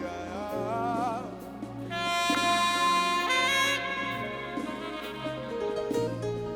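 Live praise-and-worship band music: a lead melody line with vibrato, then long held notes from about two seconds in, over sustained chords and bass.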